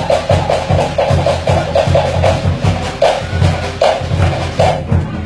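Fast Cook Islands drumming: wooden slit drums rattle out quick strokes over a pulsing bass drum beat. After about three seconds the quick strokes break into single accented hits a little under a second apart.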